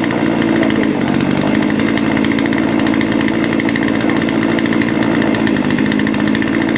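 Gas chainsaw engine running steadily at speed, cutting firewood.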